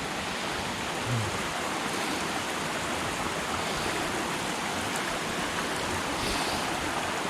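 Shallow mountain creek flowing steadily, a continuous rush of water.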